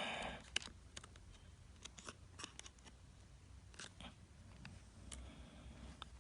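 Faint, scattered light clicks and ticks of small tools and screws against an iPhone's internal parts during reassembly, with a brief soft rustle at the start.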